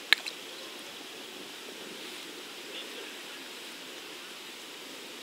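Steady outdoor background hiss, with a sharp click right at the start and a smaller one just after, as a hook is worked out of a carp's lip by hand.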